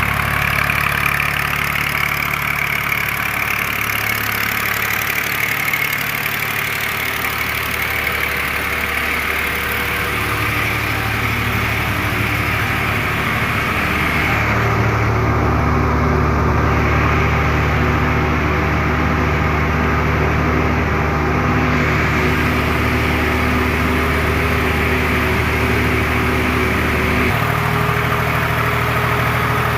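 A TMR feed mixer machine running, with a steady engine-like drone. Its pitch shifts a few times: it steps up and gets slightly louder about halfway through, then changes again near the end.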